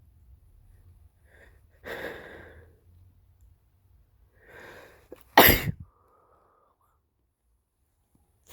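A man's wet sneeze, deliberately induced while an illness still lingers: two gasping in-breaths about two seconds and four and a half seconds in, then one loud, sudden sneeze about five and a half seconds in, followed by a brief faint whistling breath. Another gasp or sneeze begins right at the end.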